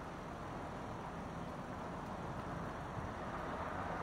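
Steady low rumble of vehicle engines and street noise, getting a little louder near the end.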